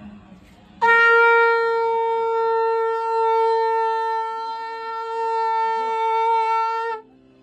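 Conch shell (shankh) blown in one long, steady note of about six seconds, starting about a second in and cutting off sharply near the end.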